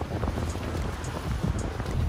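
Wind buffeting the microphone on a motorboat under way, over the rush of water and the boat engine's low, steady drone.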